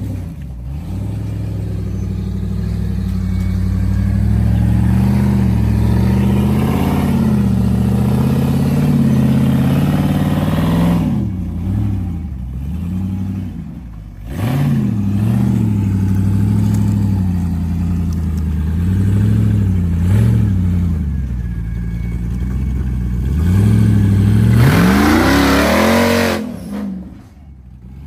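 An off-road vehicle's engine revving up and down again and again as it crawls over rock ledges, with a sharp high rev near the end that drops away.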